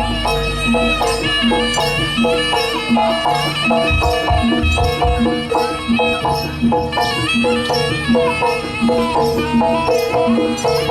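East Javanese jaranan (kuda lumping) music: an ensemble of pitched metal percussion beating out quick repeated notes over drums, at a steady driving pulse.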